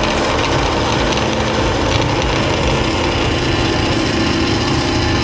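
Industrial metal-cutting band saw running, a steady mechanical drone with a constant hum under it.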